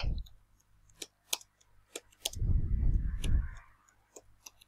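Computer keyboard typing: single keystrokes clicking at an uneven pace, a few per second. About halfway through there is a louder low, muffled sound lasting just over a second.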